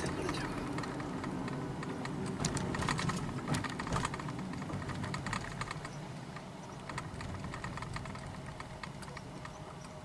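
Road and drivetrain noise inside a moving car's cabin, a steady low hum. Over it come bursts of quick, irregular light clicking and tapping, thickest in the middle and thinning out later.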